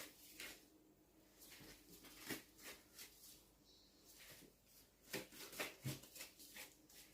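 Near silence with faint scattered clicks and soft taps from hands dividing bread dough into balls and setting them on a baking tray; a few slightly louder taps come about five seconds in.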